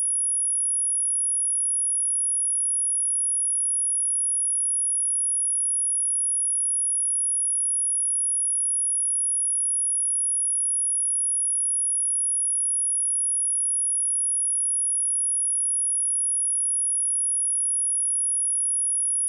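A steady, high-pitched 10331 Hz sine-wave test tone, one pure pitch held at constant level.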